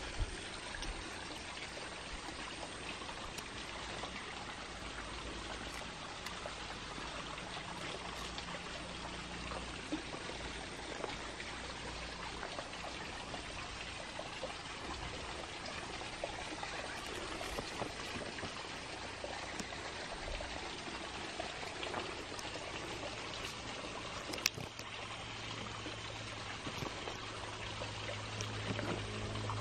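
Steady running water, like a stream or a trickle, with scattered small clicks; a low hum comes in near the end.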